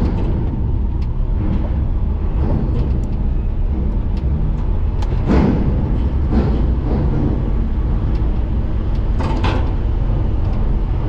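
Lorry's diesel engine running at low speed, heard from inside the cab as it rolls onto a ferry, with a few clunks and knocks about five seconds in, again a second later, and near the end.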